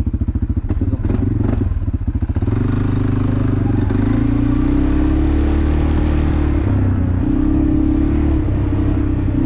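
ATV engine running with distinct pulsing beats at first. About two and a half seconds in it rises in pitch as throttle is applied, then holds at a steady, higher run.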